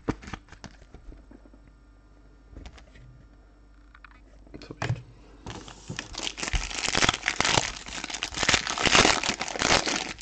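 Light handling clicks at first. From about halfway through, a plastic trading-card wrapper crinkles and tears loudly as the next pack is opened.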